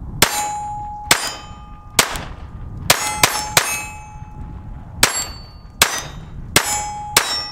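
Ruger LCP II .22 LR pistol firing about ten shots at an uneven pace, three of them in quick succession near the middle. Many shots are followed by the ringing of a struck steel gong target.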